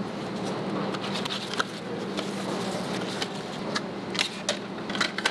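Light clicks and rustles of cardboard hang cards and twist ties being handled while silicone bottle brushes are carded, over a steady low factory hum.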